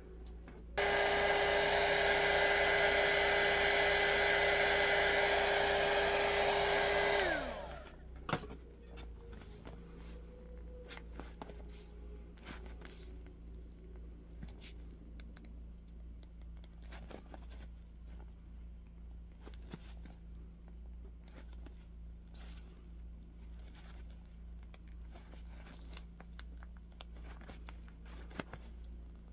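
Small electric heat gun blowing for about six and a half seconds, used to warm the tire and soften the glue holding it to the rim, then switched off with its fan winding down. After that there are only faint scattered clicks and rubbing as gloved hands work the rubber tire on the plastic rim.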